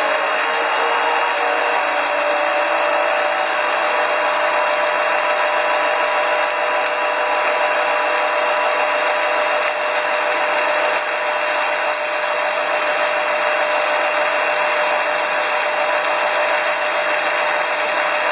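Soy protein extruder running steadily as it extrudes a continuous strand: a constant mechanical din from its belt-driven motor and screw, with a faint steady tone in it.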